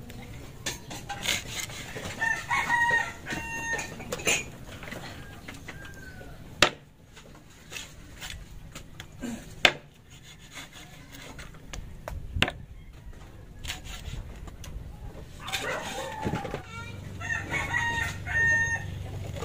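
A rooster crowing twice, once near the start and again near the end, with a few sharp knocks in between.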